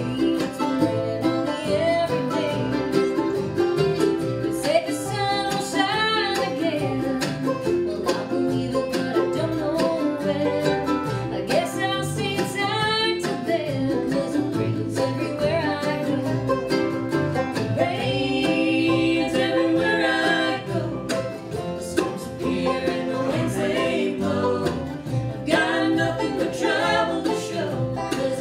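Bluegrass band playing live: fiddle, banjo, acoustic guitar, mandolin and upright bass, in a steady, continuous tune.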